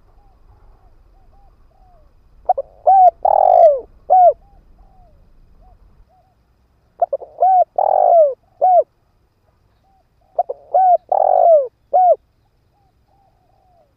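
Spotted dove cooing: three phrases of a few short arching coos, roughly one phrase every four seconds, with soft quiet notes between. It is a decoy male calling to lure wild doves.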